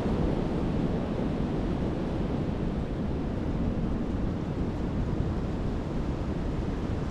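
Strong, gusty wind blowing steadily and buffeting the microphone with a low rumble.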